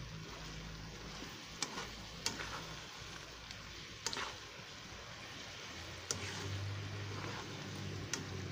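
Shrimp and vegetables in coconut milk simmering and sizzling in a wok while being stirred with a plastic slotted spatula. The spatula scrapes and taps against the pan about five times.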